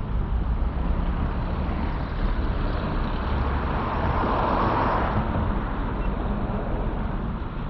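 Motor vehicle engine running with traffic noise; a rushing sound swells to a peak about four to five seconds in and then fades.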